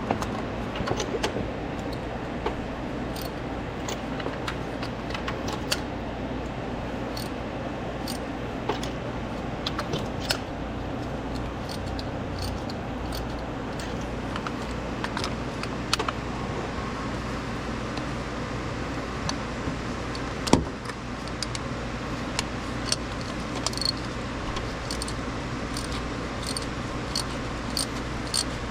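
Scattered light clicks and clinks of hand tools and metal parts being handled, with one sharper knock about twenty seconds in, over a steady low hum.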